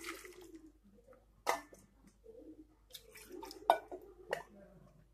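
Ground coconut paste and a little rinse water going from a mixer jar into an aluminium pot of cut vegetables: soft wet squelching and dripping, with a few sharp knocks of the jar or spoon on the pot.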